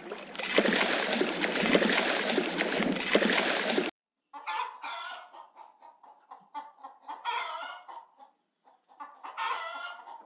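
A dense hissing, crackling noise for about four seconds that cuts off suddenly, then a chicken clucking in short repeated calls, with a louder call about a second before the end.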